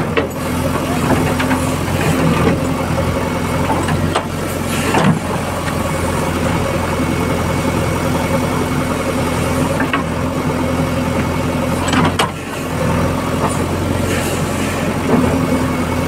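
JCB backhoe loader's diesel engine running steadily close by while the bucket works a bank of soil, with a few short knocks about four, five, twelve and fifteen seconds in.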